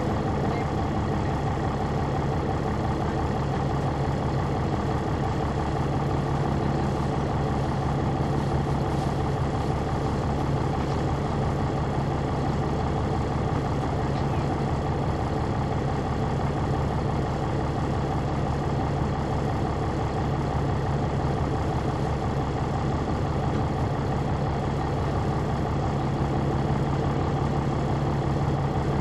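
Caterpillar C9 ACERT diesel engine of a Neoplan AN459 articulated transit bus idling with a steady, even hum, heard from inside the bus cabin.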